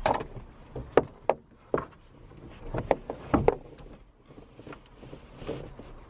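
Irregular knocks and clunks of car rear-seat backrests being folded down and handled, several sharp knocks in the first half, a few more near the middle.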